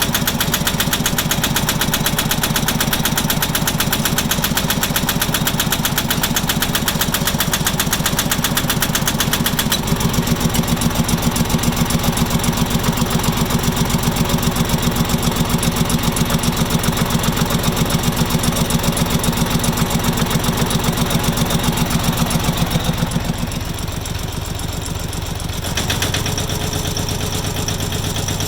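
Farmpro 2425 tractor's diesel engine running with a fast, even knock that the owner has recorded as an engine knock. It grows louder about ten seconds in, and drops back a few seconds before the end.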